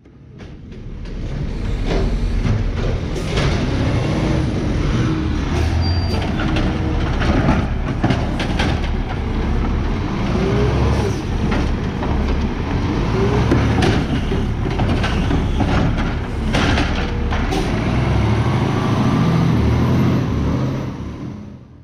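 Peterbilt 520 side-loader garbage truck with a McNeilus AutoReach arm running while the arm grabs, lifts and dumps a cart. The engine revs up and down to drive the hydraulics, with repeated clanks and bangs of the cart and arm. The sound fades in at the start and out at the end.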